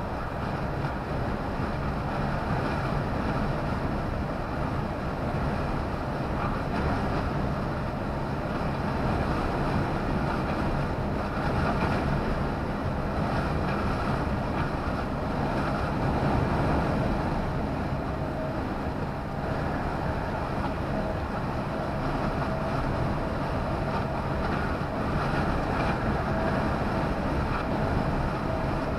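Steady engine and road noise heard inside a lorry cab driving at speed, with a faint steady whine joining in the second half.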